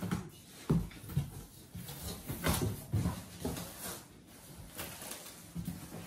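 A large cardboard box being opened by hand: its top flaps are pulled open and the cardboard rustles, scrapes and knocks several times at uneven intervals.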